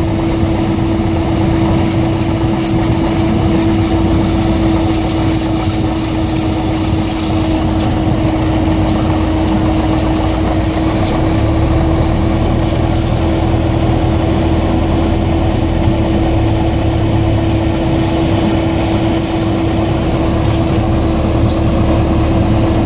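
Light aircraft's engine and propeller running steadily at low taxi power, heard from inside the cockpit as an even drone with one strong steady hum.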